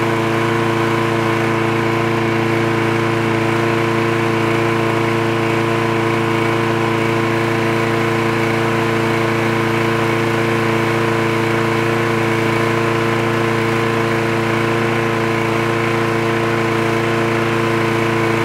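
Craftsman walk-behind lawn mower's small single-cylinder engine running steadily at one constant speed.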